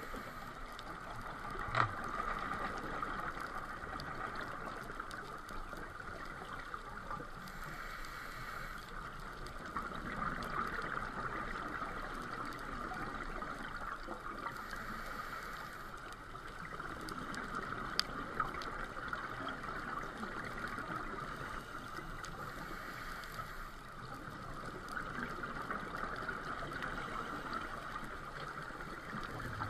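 Underwater ambience recorded during a scuba dive: a steady hiss, with bursts of exhaled regulator bubbles rushing past about every seven seconds. There are two sharp clicks, one about two seconds in and one a little past halfway.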